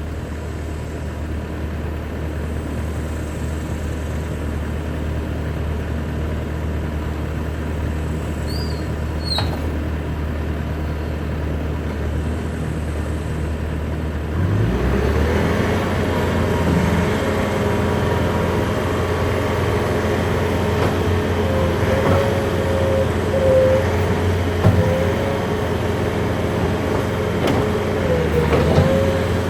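Bobcat T630 skid steer's diesel engine running at a low, steady idle, then throttled up about halfway through and running louder at high revs. At high revs a whine rises and falls as the machine is worked.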